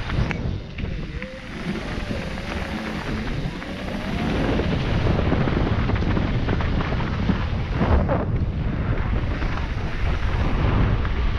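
Mountain bike rattling and knocking over a rough, rocky trail, with wind rushing across the microphone and a louder clatter about eight seconds in.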